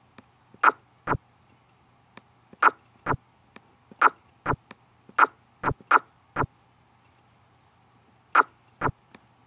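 Computer mouse clicking as chess moves are entered on an on-screen board: about a dozen short, sharp clicks, many in pairs about half a second apart (select a piece, then its square), over a faint steady hum.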